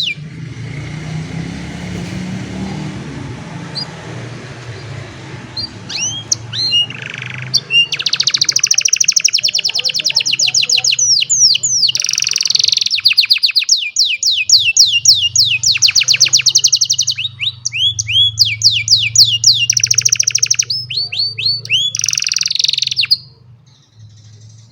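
Domestic canary singing a long song of fast trills, rapid runs of repeated notes and sweeping whistles. The song starts about six seconds in and stops suddenly near the end, over a low steady hum.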